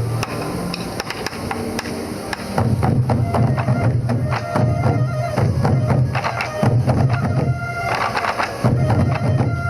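Sansa odori festival music: taiko drums beating a steady rhythm under yokobue bamboo flutes playing the melody, with the flutes standing out more clearly near the end.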